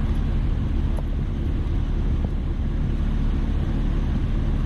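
Steady low rumble of a rooftop HVAC unit running, with a couple of faint ticks about one and two seconds in.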